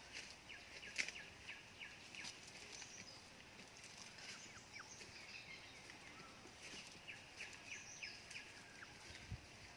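Faint outdoor ambience with small birds chirping in many short, scattered calls, and a sharper tick about a second in.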